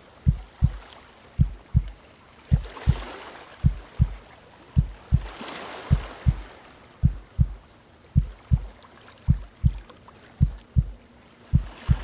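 Deep heartbeat sound effect: a low double thump (lub-dub) repeating a little slower than once a second, about eleven beats, over calm ocean waves that swell and wash back every few seconds.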